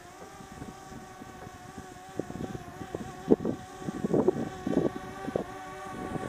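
1974 John Deere 300 snowmobile's Kohler 295 two-stroke engine running at low speed, with an irregular popping, uneven beat. It grows louder about halfway through as the sled comes closer.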